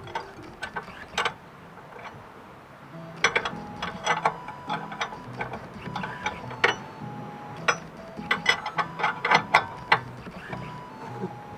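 Irregular sharp metallic clicks and clinks of hand tools and metal parts, with some ratchet-like clicking, thickest from about three seconds in. Quiet background music plays underneath.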